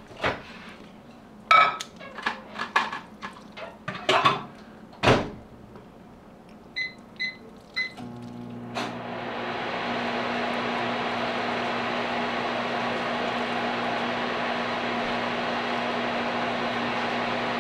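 A few clinks and knocks of kitchenware, then a microwave oven's keypad beeps three times and the oven starts up. It runs with a low steady hum and an even fan-like whir.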